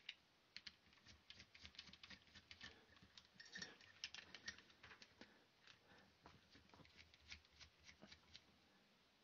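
Faint, irregular little clicks and ticks of a small hand screwdriver working a tiny screw out of a plastic RC steering hub, with the light rattle of the plastic parts handled in the fingers.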